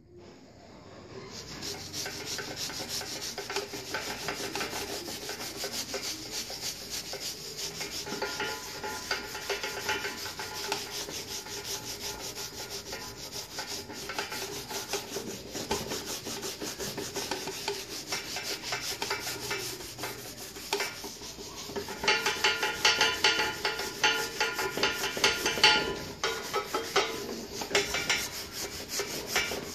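Abrasive pad scrubbed rapidly back and forth over an engraved metal wheel hub, a fast scratchy rubbing that rubs the blackening back off the raised engraving. It grows louder about three-quarters of the way through.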